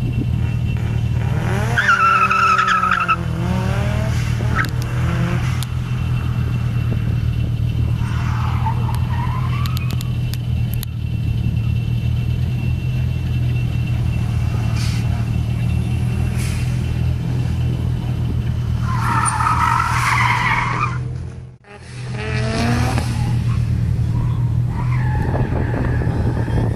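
A car's tyres squeal repeatedly as it is driven hard around tight corners, with the engine revving up and down. There is a squeal about two seconds in, another around nine seconds, a long loud one around twenty seconds and a last one near the end, over a steady low hum. The sound drops out briefly about three-quarters of the way through.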